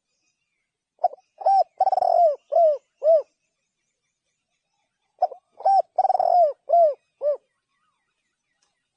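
Spotted dove cooing: two phrases of five or six short arched coos each, with one longer, drawn-out coo in the middle, the second phrase starting about four seconds after the first.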